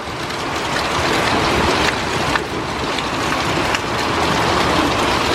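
Thunderstorm wind gust with rain, building over the first second or so and then blowing steadily, with a few sharp ticks scattered through it.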